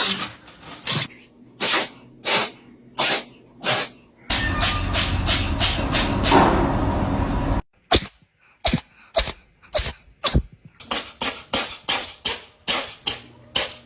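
Cats sneezing over and over: many short, sharp sneezes one after another, coming thick and fast, about a dozen in quick succession near the end.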